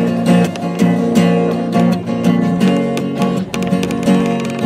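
Acoustic guitar strummed in a steady rhythm, with a transverse bamboo flute playing a melody of held notes over it.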